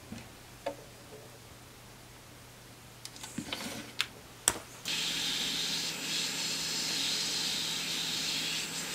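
Hand-held hot air rework gun switched on about five seconds in, blowing a steady hiss with a low fan hum as it shrinks heat-shrink tubing over soldered wire splices. Before it starts, a few clicks and knocks of the tool being picked up and handled.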